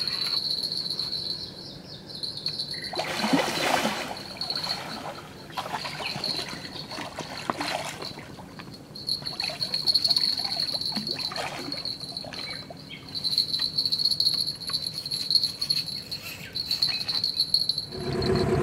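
Night insects chirring in a steady high-pitched chorus, broken by irregular splashing as a wels catfish thrashes in the shallows at the bank, the loudest splash about three seconds in.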